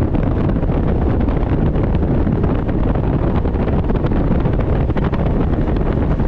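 Wind rushing over the microphone while a fishing boat runs at speed across the lake: a loud, steady rumble of moving air with no clear engine note.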